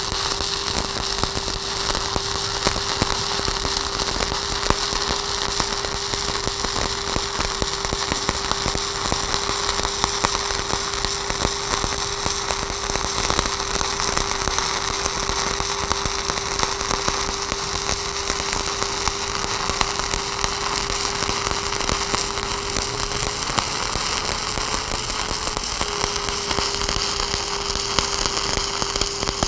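Stick (shielded metal arc) welding with a 1/8-inch 7018 electrode at 125 amps, dragged along a cap bead: the arc gives a steady, dense crackle, with a steady hum under it.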